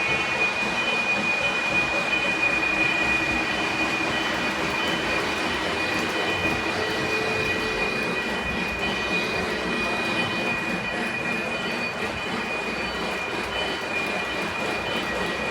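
Lionel O-gauge model train running on its track: a steady rolling rumble of wheels on rail, with a steady high whine over it.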